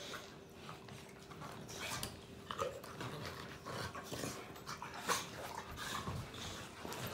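An English Mastiff and an Old English Bulldog play-fighting, mouthing at each other's heads with irregular bursts of breathing and mouth noise, the loudest about two and a half and five seconds in.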